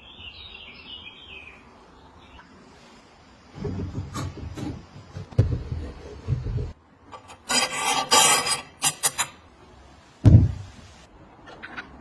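Workshop hand work: a series of dull knocks, then about two seconds of harsh rasping, scraping strokes, and a single heavy thump near the end. A bird chirps briefly at the start.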